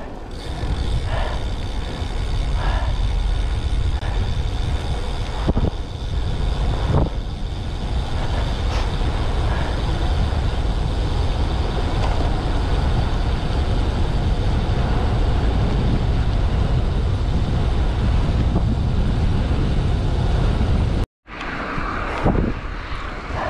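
Wind rushing over the camera microphone as a road bike rides at speed on a wet road: a steady, loud, low rumble with a few small knocks. It cuts out for an instant near the end and comes back quieter.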